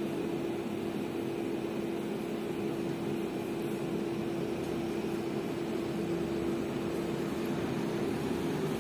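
Coin-operated 18 kg commercial tumble dryer running: a steady mechanical drone with a constant hum.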